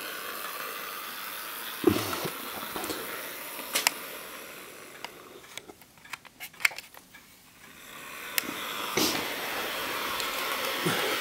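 Bachmann Toby model tram locomotive running along its track, a small electric motor whirring with the wheels on the rails. It fades as the model runs away, then grows louder again near the end as it comes back, with scattered clicks and a few knocks along the way.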